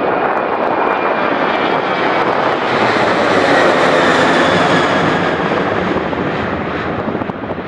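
Boeing 737-800's twin CFM56-7B turbofan engines at takeoff thrust as the jet climbs out overhead: a loud roar with a thin high whine over it, swelling to its peak about halfway through and beginning to fade near the end.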